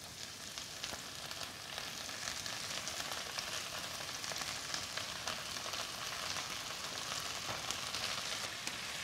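Onion and chopped sorrel frying in oil in a stainless steel frying pan: a steady sizzle with fine crackles that builds over the first couple of seconds as the sorrel goes in.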